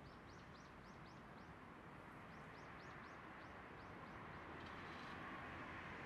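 A small songbird calling faintly: two quick runs of short, high, downward-slurred notes, about four a second, a second apart, over a faint steady rush of background noise.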